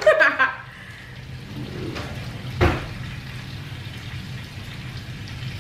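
Steady sizzle of chicken thighs searing in a frying pan, with one sharp click about two and a half seconds in.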